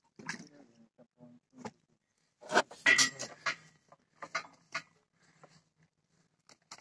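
Irregular clinks and knocks of objects being handled, busiest in a clattering cluster about two and a half to three and a half seconds in.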